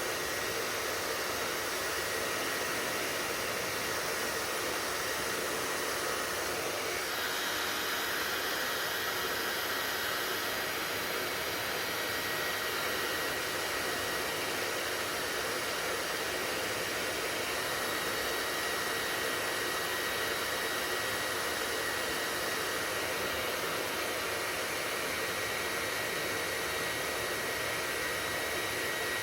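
Hair dryer running steadily: an even rush of blown air with a faint high whine, growing slightly brighter about seven seconds in.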